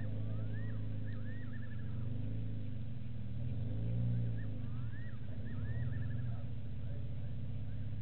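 A low, steady engine hum that swells slightly twice. Over it, a bird calls twice: rising whistles that end in a quick run of falling notes.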